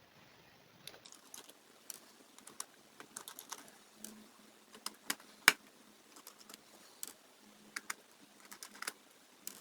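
Irregular light clicks and taps from working inside an opened HP laptop to take out its battery, with one sharper click about five and a half seconds in.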